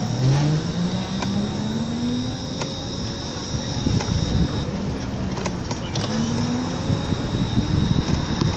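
A motor vehicle running, its pitch rising steadily for about two seconds as it speeds up, then rising again briefly about six seconds in, over a steady low rumble and a thin high whine.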